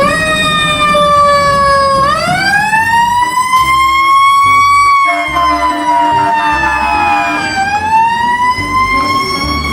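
Electronic fire-engine siren wailing loudly, its pitch sweeping slowly up and down in long rises and falls of a few seconds each.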